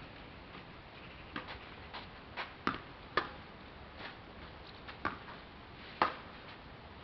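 Tennis balls being struck with rackets and bouncing on the court during a rally: a run of sharp pops, irregularly spaced about a second or less apart.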